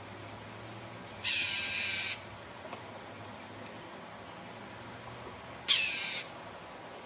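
A bird giving two loud, harsh squawks about four seconds apart, the first lasting about a second, with a brief high chirp between them.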